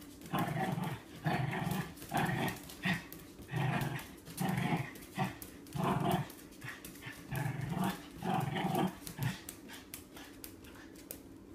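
A dog vocalizing in a rapid run of short, repeated bursts, about one and a half a second, that stop near the end.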